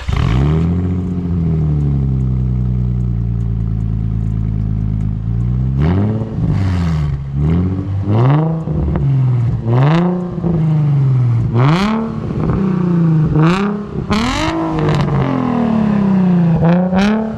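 A 2006 Nissan 350Z's 3.5-litre V6 heard at the tailpipes of its Tomei aftermarket exhaust. It flares up as it starts and settles to a steady idle, then from about six seconds in it is blipped up and down again and again, about eight times. It is quite loud.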